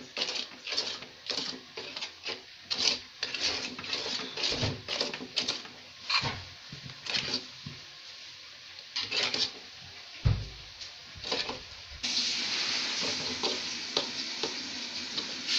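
A spoon scraping and stirring a thick jak seed toffee mixture around a pan in repeated strokes. About twelve seconds in, this changes abruptly to a steady hiss with a few faint ticks.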